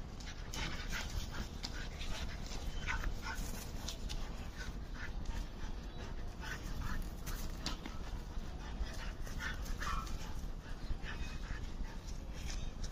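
A German Shepherd and an Indian local dog at play, with brief whimpers and short, scattered vocal sounds throughout.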